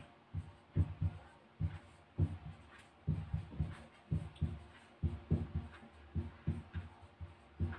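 Marker writing on a whiteboard: a string of short, soft knocks and scrapes, about two a second, as each stroke of the letters is made.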